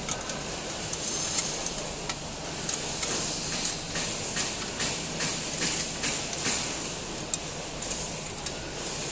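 Steel open-end spanner clicking and scraping on the bolts and stainless plate of a tray denester as the bolts are tightened, fixing an adjusted guide in place. The clicks are light and irregular, over a steady low hum.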